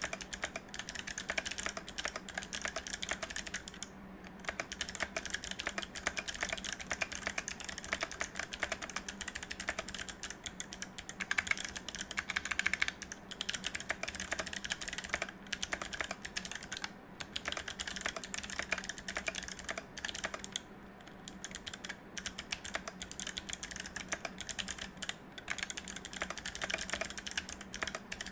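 Continuous typing on a mechanical keyboard with clicky Kailh Box Navy switches in a steel plate and frosted acrylic case, under GMK keycaps: a dense, rapid run of sharp clicks, with brief pauses about four seconds in and again around twenty-one seconds.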